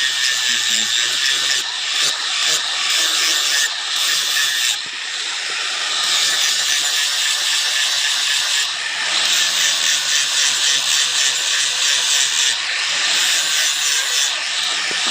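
Steel cutter blade being sharpened, a steady harsh rasping scrape broken by a few short pauses.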